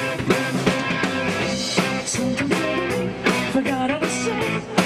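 Live rock band playing: electric guitars, keyboard, bass and drum kit, over a steady drum beat.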